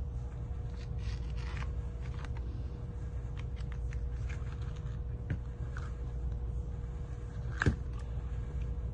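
Faint scraping and small ticks of tools prying under a phone's back glass as its alcohol-softened adhesive lets go, with one sharper click about three-quarters of the way through, over a steady low hum.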